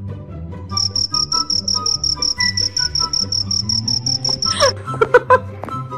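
Cricket-chirping sound effect: a rapid high-pitched trill that starts and stops abruptly after about four seconds, laid over background music with a repeating bass line. Short bursts of voices come near the end.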